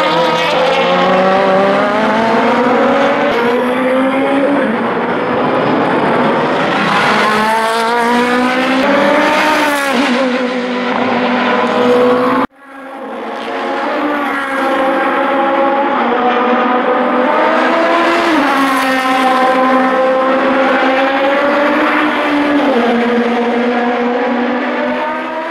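Honda NSX Concept-GT GT500 race car's turbocharged four-cylinder engine running hard on track. Its pitch climbs under acceleration and steps down at each gear change. The sound breaks off for an instant about halfway through, then comes back.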